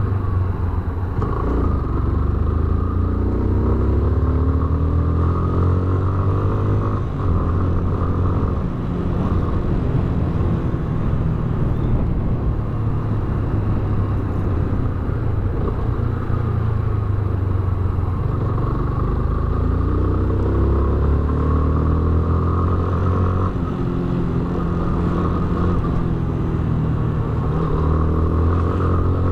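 Yamaha Fazer BlueFlex's single-cylinder engine running while the motorcycle is ridden. Its pitch climbs as it accelerates and drops back as it shifts up, several times.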